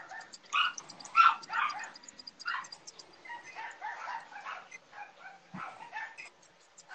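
A dog barking and yapping in short repeated bursts, loudest about a second in, over faint fast high clicking.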